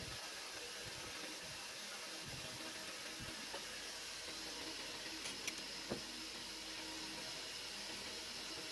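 Steady background hiss, with two faint clicks a little past halfway as small metal horn parts are handled.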